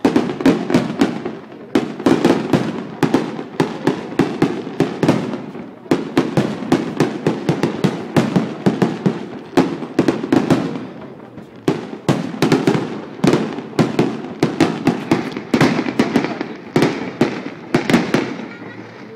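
Fireworks display: a rapid barrage of aerial shells bursting, one sharp bang after another at several a second.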